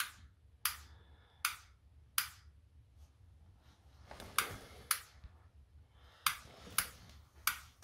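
A light switch clicking on and off about nine times in quick succession, with a short pause partway through: the power to an IKEA Trådfri bulb is being cycled six times to reset it for pairing.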